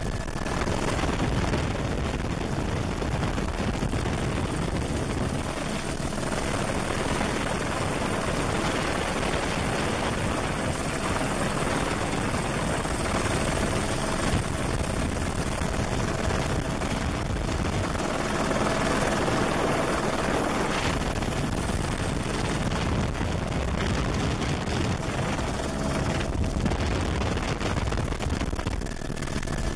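Eurocopter Ecureuil helicopter in flight, heard from inside the cabin: a steady rush of turbine and main-rotor noise with a faint steady whine.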